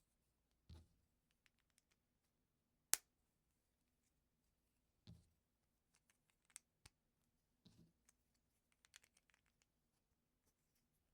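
Plastic LEGO pieces being handled and pressed together: three soft thumps, one sharp click about three seconds in that is the loudest, and quick runs of small plastic clicks, the last near the end.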